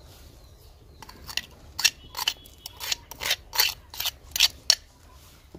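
About ten short, sharp scrapes in quick irregular succession, starting about a second in: shredded boiled chicken being scraped out of a clay bowl into a clay pot of broth.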